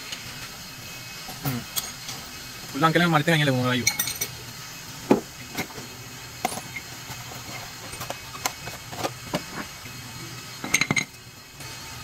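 Scattered light metallic clinks and taps as car brake pads and their thin metal shims are unpacked and handled, with a quick cluster of clinks near the end.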